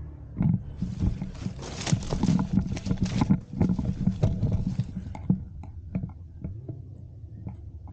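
Footsteps and body movement crunching and rustling through dry leaves and undergrowth: a dense crackling rustle for the first few seconds, then scattered knocks and rustles.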